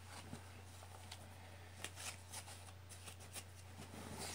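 Faint, irregular rustling and light crackles of a loop of sticky tape being handled and rolled over a garment to pick up pet hair, over a steady low hum.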